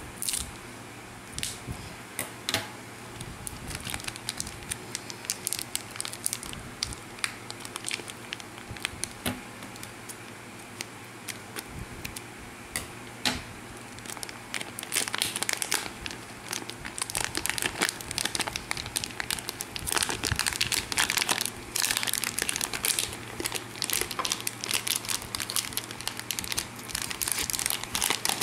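Clear plastic drink packaging being cut with scissors and handled: scattered snips and crackles in the first half, then dense, continuous crinkling about halfway through as the sealed inner plastic pouch is worked out of the cut outer bag.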